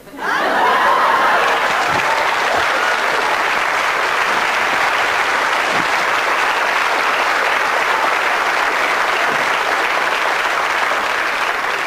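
Audience applauding, starting suddenly and holding steady, easing off slightly near the end.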